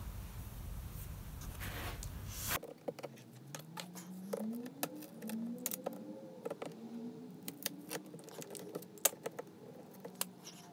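A steady rustling haze for the first couple of seconds, then a run of small sharp clicks and taps as pliers grip and work at a piece of glass in a soldered, copper-foiled stained-glass panel.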